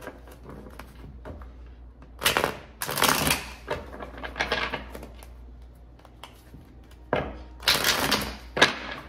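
A tarot deck being riffle-shuffled: several bursts of rapid card flutter, about two and three seconds in and again near the end, with quieter taps of the deck being squared in between.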